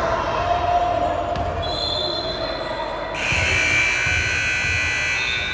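A basketball bouncing on a gym court during a game, with a cluster of steady high-pitched tones coming in about halfway through and growing louder.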